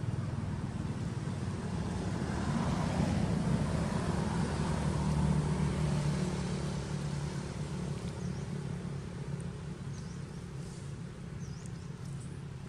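A motor vehicle's engine passing by: a low hum that swells to its loudest a few seconds in, then fades back to a steadier, quieter drone.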